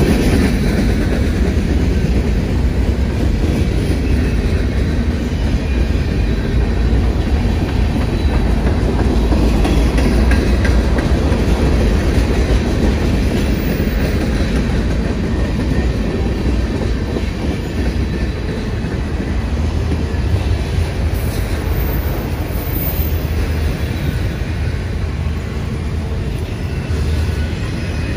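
Freight cars of a slow-moving CSX manifest train rolling past, their steel wheels running on the rails in a steady rumble that eases slightly in the second half.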